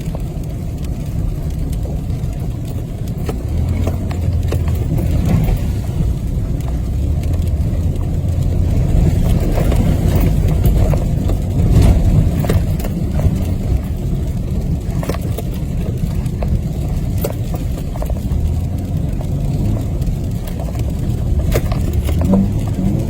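Steady low rumble of a vehicle's engine and tyres heard from inside the cabin while driving on an ice-covered road. Scattered sharp crackling clicks run throughout, from the tyres crunching over ice.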